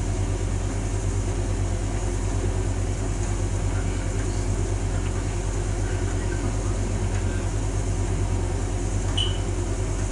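Hotpoint tumble dryer running near the end of its drying cycle, the drum turning and tumbling a load of clothes over a steady motor hum.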